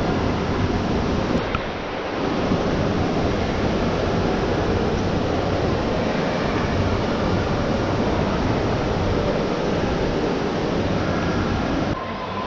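Steady, dense background noise of a large shopping-mall atrium: the echoing wash of a distant crowd and building noise. It dips briefly about two seconds in and again near the end.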